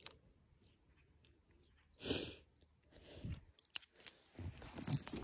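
Close handling sounds around a dog on a chain in the snow: a short snort or huff about two seconds in, then soft crunching and a couple of light metallic clicks, with busier rustling near the end.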